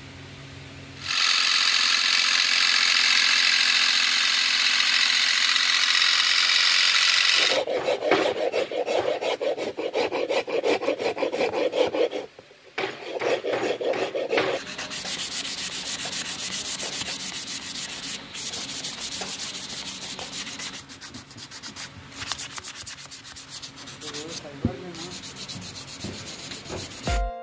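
A long metal file scraping in quick, coarse strokes across a wooden kukri-shaped piece, then a sanding sponge rubbed back and forth on wood in lighter, faster strokes. Before the filing, a loud, steady hiss lasts about six seconds.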